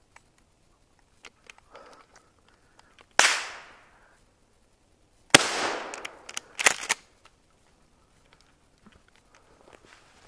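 Two loud gunshots about two seconds apart, each ringing out briefly, with a quick cluster of further sharp cracks under a second after the second shot.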